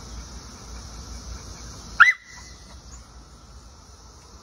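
A gray pit bull–type dog gives one short, high-pitched bark about two seconds in, a thin, squeaky bark rather than a full one.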